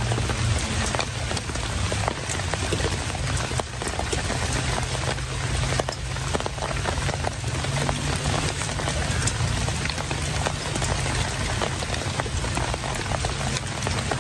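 Steady rain falling, with many close drops ticking sharply over an even hiss, and a steady low hum underneath.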